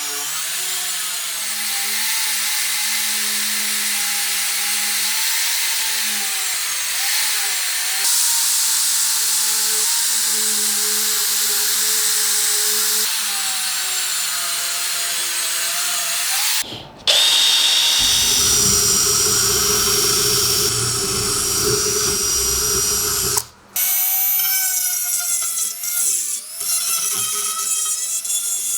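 Handheld power tool running at speed against the rusty metal of an old pipe vise, its motor whine wavering under load. The sound cuts off abruptly about 17 seconds in and again about 23 seconds in, and each time resumes with a different character, the middle stretch heavier and more rumbling.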